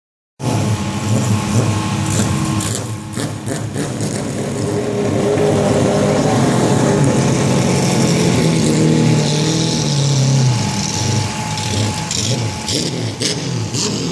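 A pack of V6 banger stock cars racing around a short oval. Their engines run hard together, pitch rising and falling as the cars lap and pass, starting a moment in.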